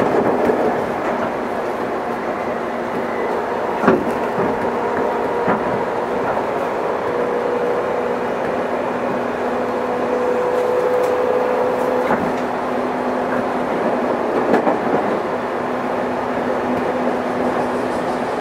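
Running noise heard inside a JR West 213 series 0 electric multiple unit on the move: a steady rumble of wheels on rail with a faint steady hum. There is a sharp knock about four seconds in and a few lighter knocks after it.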